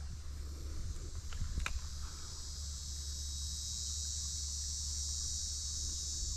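Steady, high-pitched chorus of insects droning in the swamp, over a low rumble, with a couple of faint clicks about a second and a half in.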